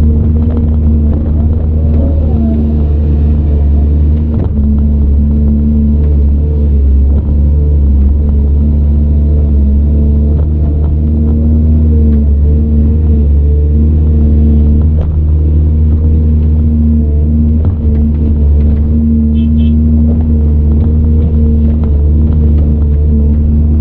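CAT 395 excavator's diesel engine running steadily under working load, a deep rumble with a steady hum, heard from inside the operator's cab.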